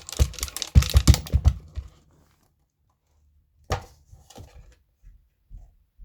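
Rapid crackling and clicking as a part of the subwoofer is pried and worked loose by hand, for about two seconds, then a single short scrape a little past the middle.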